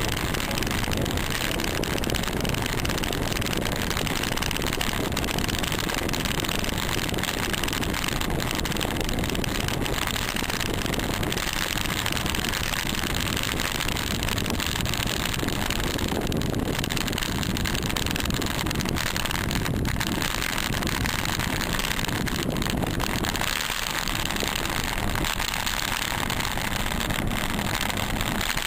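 Steady rushing wind and road noise on the microphone of a camera mounted low on a fixed-gear bicycle being ridden.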